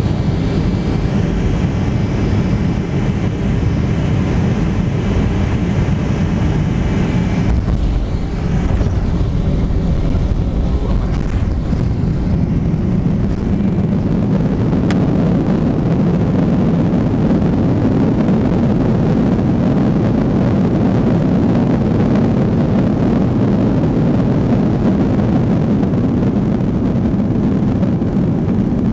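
Cabin noise of a Boeing 737-200 with its Pratt & Whitney JT8D turbofans landing: steady engine and airflow noise with a thin high whine that drops away about a quarter of the way in. Over the second half a heavier low rumble builds as the jet rolls out on the runway with its spoilers raised.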